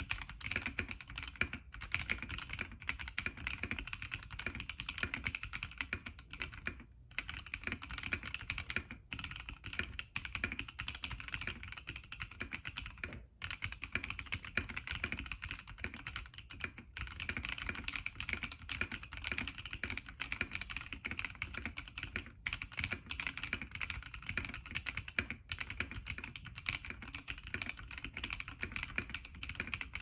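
Fast, continuous typing on a Zepsody Rehouse60 stacked-acrylic 60% mechanical keyboard fitted with Iceberg switches and Akko clear ASA keycaps: a dense stream of keystroke clacks with only a few brief pauses.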